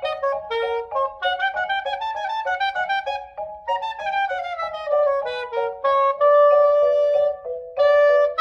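A woodwind instrument playing a melody: quick runs of short notes that rise and fall, then, from about six seconds in, longer held notes.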